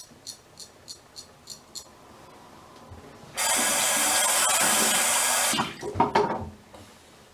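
A straight razor scrapes across lathered stubble in about six short strokes. Then a bathroom tap runs for about two seconds and stops, followed by a few short splashes.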